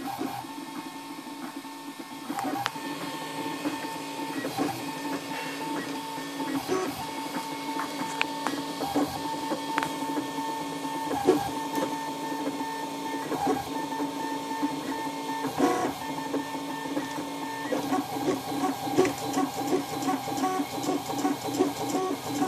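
RepRap Prusa i3 3D printer printing: its stepper motors whine in steady tones that shift pitch as the head and bed change moves, with scattered small clicks. In the last few seconds the moves turn into a quick run of short stuttering pulses.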